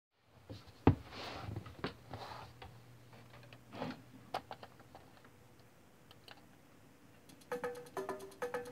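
Faint scattered clicks and soft rustling over a low hum, then background music starts near the end.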